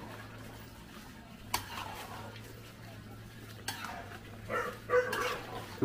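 Cooking utensil knocking and scraping in a large pot of stew, three sharp knocks about two seconds apart, over a steady low hum.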